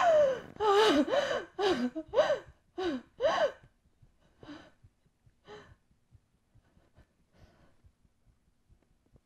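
A person crying: several high, wavering sobbing cries with gasps in the first few seconds, trailing off into fainter sobs and breaths.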